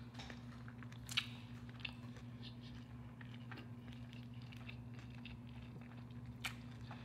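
A person chewing a mouthful of soft chicken taco in a flour tortilla, faintly, with scattered small wet mouth clicks over a steady low hum.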